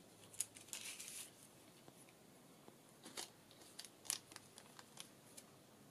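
Faint rustling and small sharp ticks of paper, twine and a clear plastic packet being handled, with a longer rustle about a second in and a few separate clicks later.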